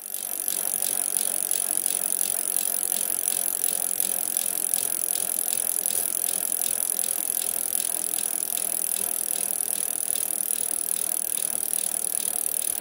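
Bicycle freewheel hub ticking steadily as the rear wheel spins free. The pawls make a rapid, even ticking over a steady hiss.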